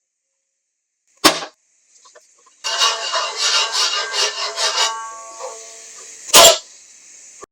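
Toy ukulele used for sound effects: a sharp knock, then a quick flurry of plucked string notes for about two seconds that rings out, then another sharp knock near the end.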